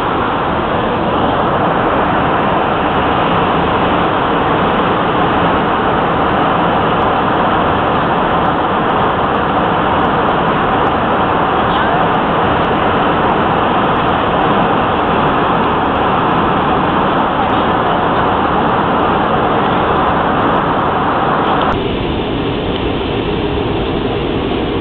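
Steady in-flight cabin noise of a jet airliner, an even rush of engine and air noise. About three seconds before the end, its middle range thins out and it gets a little quieter.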